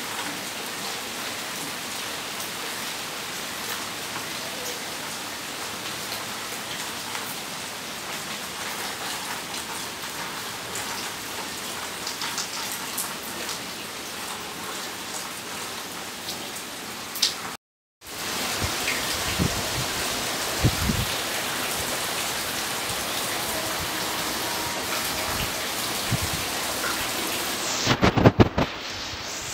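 Steady rain falling on plants and a wet paved floor, an even hiss. The sound cuts out for a moment a little over halfway, then the rain comes back louder, with a few low thumps and a short cluster of them near the end.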